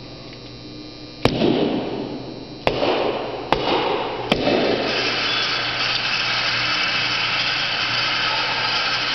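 Four sharp gunshots at an indoor pistol range, spaced roughly a second apart, followed by a steady hiss.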